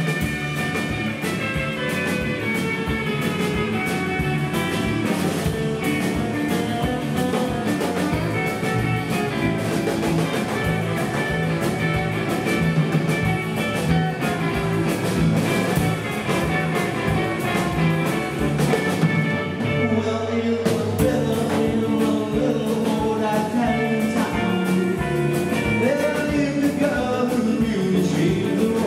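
Live rock and roll band playing electric guitars, bass guitar and a drum kit with a steady beat.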